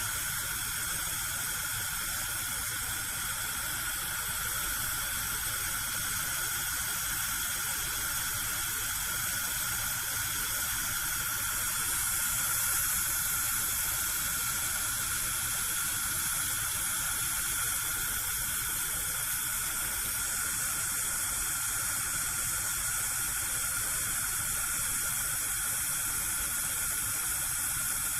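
Gas cooker burner alight, its flame giving a steady hiss. The hiss grows a little brighter for several seconds midway.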